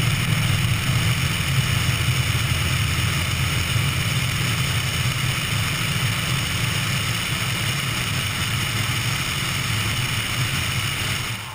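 A 1954 Piper L-21B Super Cub's engine and propeller running steadily at power, with wind rush, as the plane rolls fast over a grass strip and skims just above it. The level eases slightly over the stretch.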